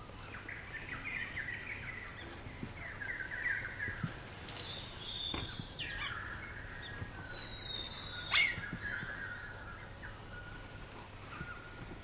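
Small garden birds twittering and chirping, with a few thin high whistled calls in the middle. One short sharp click, the loudest sound, comes a little after two-thirds through.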